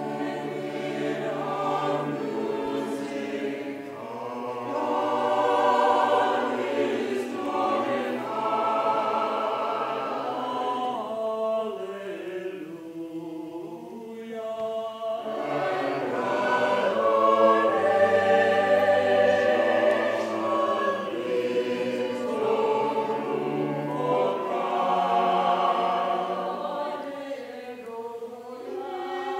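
Mixed choir of women's and men's voices singing a hymn in sustained phrases, with short breaks between phrases.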